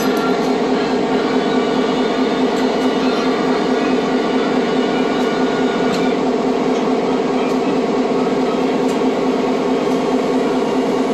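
Diesel locomotive engine idling with a steady, even hum.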